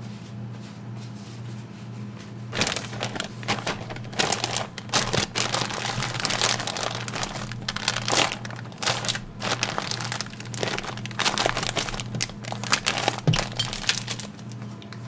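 Plastic bag and food wrapper being crinkled and crumpled by hand, an irregular crackling that starts about two and a half seconds in and keeps going until near the end, over a steady low hum.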